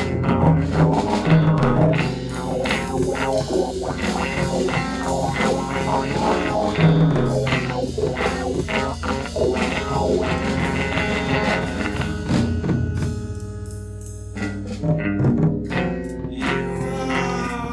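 Instrumental music with a drum kit and guitar playing steadily. About two-thirds through, the drums drop out and the sound thins for about a second and a half before the full band comes back in.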